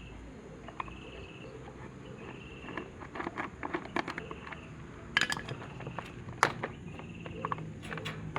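Light clicks, taps and clinks of electric fan parts and tools being handled, more frequent from about three seconds in. A short high chirp repeats roughly every second and a half in the background.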